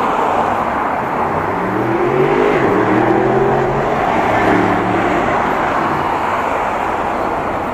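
Red London double-decker bus driving past close by, its engine note bending in pitch over a few seconds, over steady road traffic noise.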